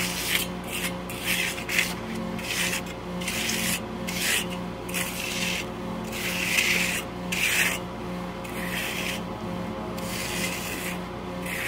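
Steel finish trowel scraping across the surface of fresh concrete in repeated rasping strokes, about one a second. The slab is being floated now that most of its surface water has evaporated.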